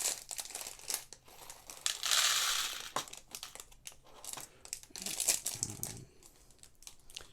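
Thin plastic parts bag crinkling as it is handled and opened, with sharp clicks of small plastic Lego Technic pins, and a dense rustle lasting about a second starting around two seconds in.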